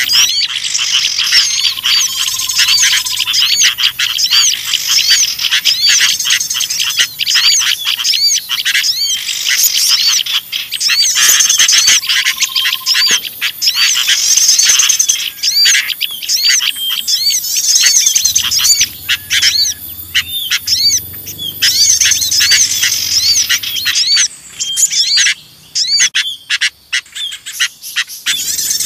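Bird-lure recording of noisy, agitated sooty-headed bulbul (kutilang) calls mixed with the chatter of small songbirds: a dense, unbroken stream of rapid, high chirps and twitters, thinning out with short gaps near the end.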